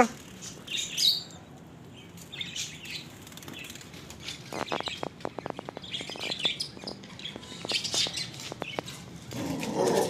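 Birds chirping in short high calls, with a fast run of clicks about four to six seconds in like wings flapping, and a louder rush of noise at the very end.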